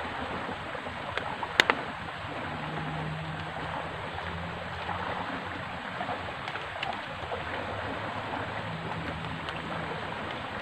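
Steady rush of a river current flowing, with two sharp clicks close together about one and a half seconds in.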